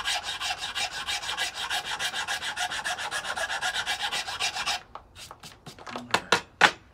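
Hand file rasping back and forth across the end of a wooden board in rapid, even strokes, several a second, stopping about five seconds in. A few light knocks follow near the end.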